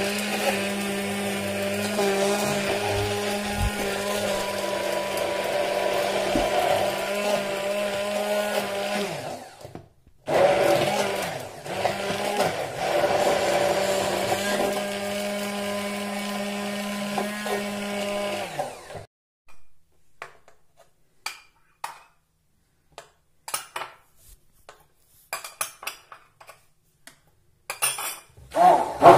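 Braun 250-watt immersion blender running in a plastic beaker, whipping instant coffee, sugar and water into dalgona foam, with a steady motor hum. It stops briefly about ten seconds in and runs again. About two-thirds of the way through it cuts off, and only scattered light clicks and knocks follow.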